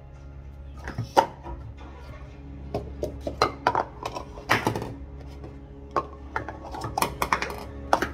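Plastic sport-stacking cups clacking as they are rapidly stacked up and down on a padded mat, a quick run of clicks and taps starting about a second in.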